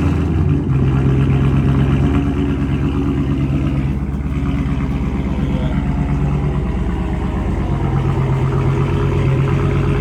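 Dodge Charger's HEMI V8, with its resonators deleted from the exhaust, running at a steady, fast cold-start idle just after firing up.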